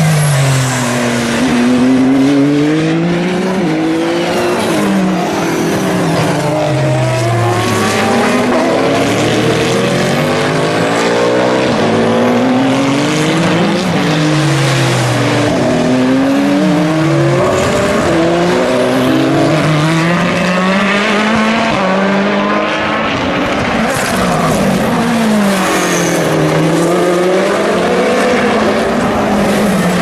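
Endurance race cars, prototypes and GT cars, braking hard into a slow corner one after another. Their engine notes fall through the downshifts and then rise as they accelerate away through the gears, with several cars overlapping. A Toyota GR010 Hybrid's twin-turbo V6 passes at the start.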